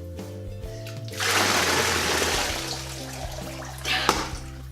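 A large binful of wet Orbeez water beads poured out in one go, cascading and splashing down for about two seconds, starting about a second in and then tailing off.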